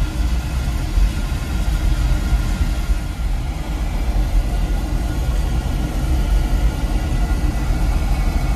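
Oil burner of a Weil-McLain boiler firing: a steady, even low rumble of flame and burner blower.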